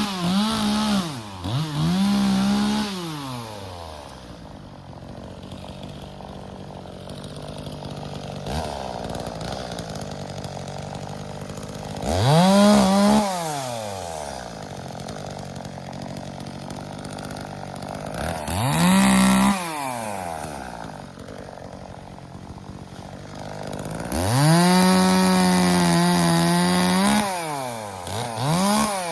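Two-stroke chainsaw revved to full throttle in several bursts, the longest near the end, each dropping back to idle in between.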